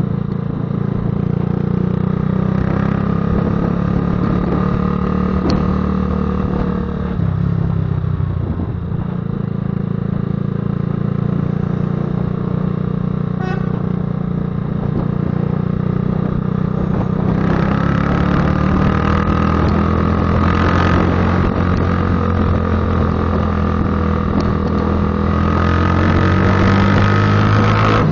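Patagonian Eagle cruiser motorcycle riding along with its engine running in a deep exhaust rumble. The engine note shifts briefly about seven seconds in, then climbs slowly through the second half as the bike picks up speed.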